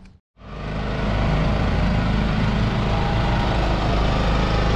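A motor vehicle running steadily, engine hum with road or wind noise, starting abruptly about a third of a second in.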